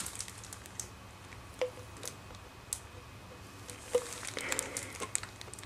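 Clear gel slowly pouring from a plastic bottle into a plastic applicator bottle: faint squishing with a few scattered small clicks.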